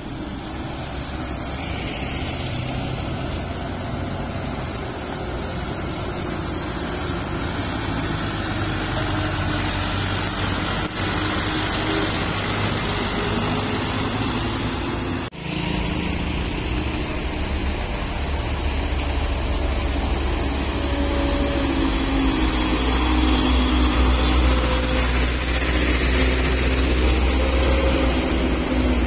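Trucks and a motorcycle passing slowly at close range in heavy traffic, their diesel engines running low and steady. Partway through the engine noise becomes heavier as a big truck passes right by. A thin, steady high whine runs through most of the second half.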